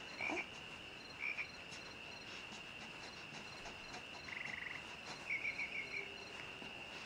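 Crickets chirping quietly: a steady high trill with short pulsed chirps breaking in now and then, a quick run of them a little after the middle.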